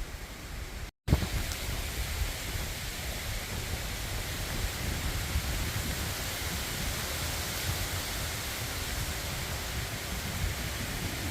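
Wind buffeting the microphone: a steady rushing noise with low rumble, broken by a split-second gap of silence about a second in.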